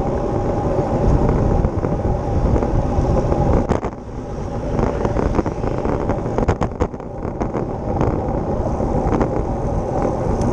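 Wind buffeting the microphone of a handlebar-mounted camera on a moving road bike, over the steady hum of tyres on asphalt, with a few short clicks.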